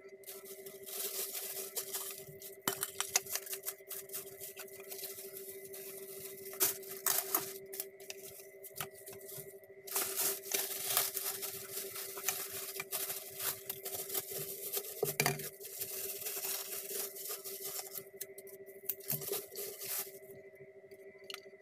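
Plastic wrapping being torn and crinkled by hand as a pump bottle is unpacked, in irregular rustles and clicks. A steady hum runs underneath.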